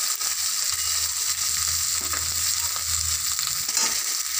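Whole shallots and garlic cloves sizzling steadily in hot oil in a kadai, with a metal spatula scraping the pan a couple of times as they are stirred.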